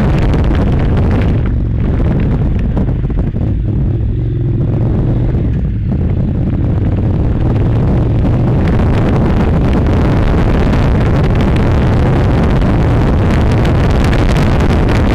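Honda NC700's parallel-twin engine running as the motorcycle rides at speed, with heavy wind buffeting on the microphone. The wind noise eases for a few seconds near the start, leaving the engine's low steady hum plainer, then comes back.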